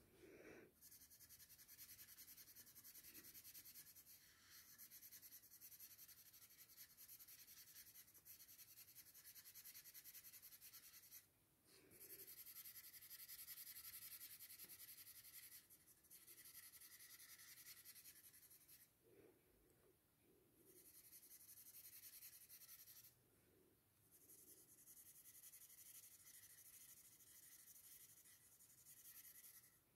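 Faint scratchy rubbing of a paper blending stump on drawing paper as graphite shading is smoothed over, in runs of a few seconds with short pauses between strokes.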